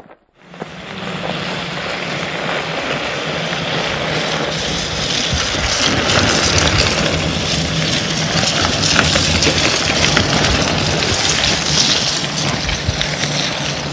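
Steady rushing noise of wind and rain, with a low steady hum underneath, starting about half a second in.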